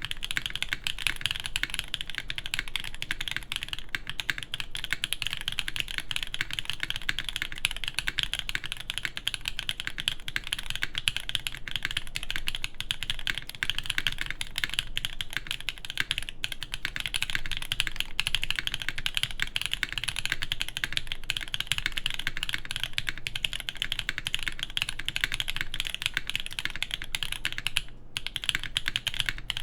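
Steady, fast typing on a LINE FRIENDS TKL mechanical keyboard with lubed Black Cherry Pie linear switches, a full aluminium plate, TX switch films and DCX keycaps: a dense stream of keystroke clacks, with a brief pause near the end.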